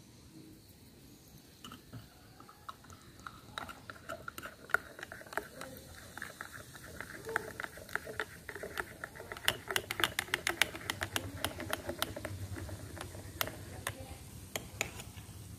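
Soda water poured from a plastic bottle into a glass of curd mix, fizzing and crackling as it foams up. The crackle builds and is thickest about ten seconds in.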